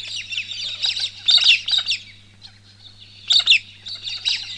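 Several small birds chirping and twittering in quick, busy bursts of short falling notes. The calls thin out about two seconds in and pick up again near the end. A faint steady low hum lies underneath.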